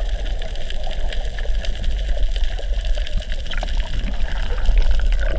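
Water noise: a steady, heavy low rumble with dense crackling over it.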